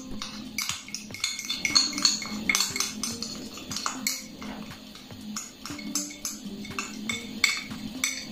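Metal spoon scraping and tapping inside a plastic tub, working spice paste out of it into a stainless steel bowl: an irregular string of clinks and scrapes.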